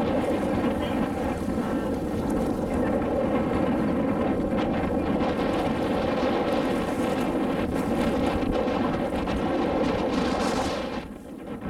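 Motorboat engine running steadily under way, with wind on the microphone. The sound dips briefly near the end.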